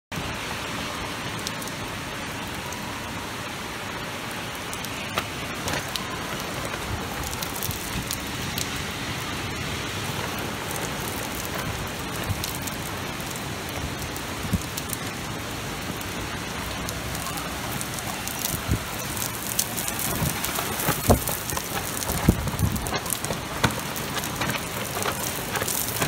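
Heavy rain in a summer thunderstorm, a steady hiss, with sharp raindrop taps on a nearby surface growing more frequent and louder in the second half.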